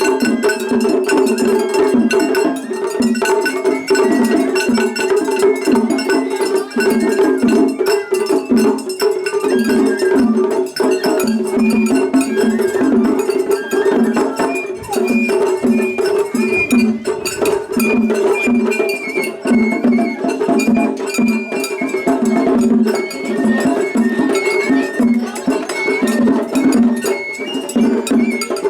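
Japanese festival hayashi music played loud and without a break: a high bamboo flute melody over rapid taiko drumming and the clang of an atarigane hand gong. Rival float bands play against each other at the same time in a seriai face-off.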